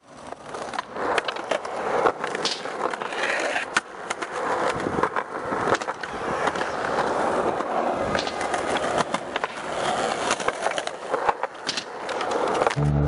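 Skateboard wheels rolling over concrete, with repeated sharp clacks of tail pops and board landings. Music comes in near the end.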